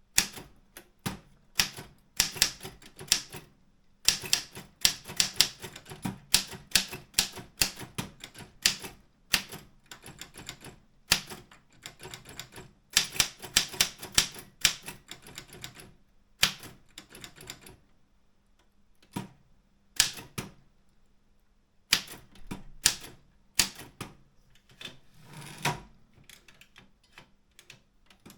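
Optima M14 typewriter being typed on: quick runs of sharp key strikes in bursts, broken by short pauses, with the longest pause, of about two seconds, a little past halfway.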